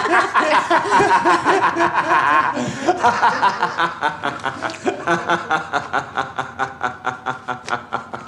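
Several people laughing at a joke, breaking into a long run of rhythmic ha-ha pulses that slowly tails off.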